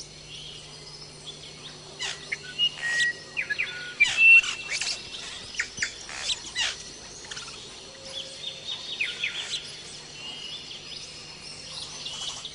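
Many birds chirping and whistling in short, overlapping calls, busiest in the first half, over a faint steady low hum.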